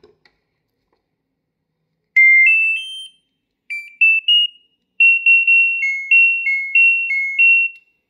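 A washing-machine control board's electronic buzzer, just powered up, plays a rising three-note chime about two seconds in, then a few more short notes and a run of beeps alternating between two pitches. The board is alive and responding to power.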